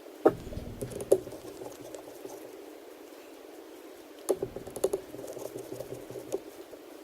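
Light clicks and taps of small repair tools and tiny screws being handled on an iPad mini: a couple of sharp clicks in the first second, then a quick cluster about four seconds in.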